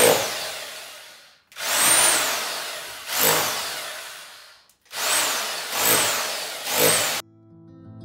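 Corded electric rotary hammer breaking out stone and mortar from a wall, run in three long bursts, each starting loud and fading, with a motor whine rising and falling. The last burst stops abruptly about seven seconds in.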